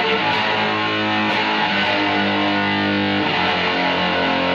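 Electric guitar played through a homemade high-gain single-ended tube amp built with 1930s AF7 and AL4 pentode tubes, its gain stages all in circuit. Sustained, dense chords ring out, changing to a new chord about three seconds in.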